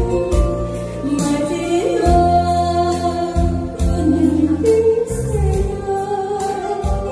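A woman singing a Korean trot song live into a handheld microphone, holding long notes, over a backing track with bass and drums.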